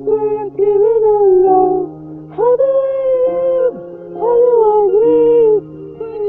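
A singing voice holding long, slightly wavering notes in several phrases with short pauses between them, over a steady sustained backing accompaniment.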